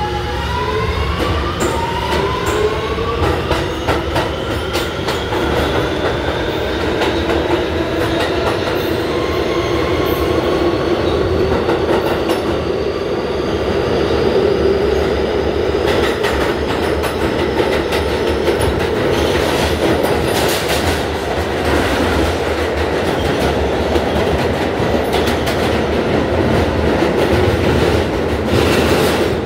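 Inside an R211 subway car as the train pulls out of a station: the propulsion whine climbs steadily in pitch while the train accelerates, over a constant running rumble. Later, bursts of sharp clicking come from the wheels passing over rail joints.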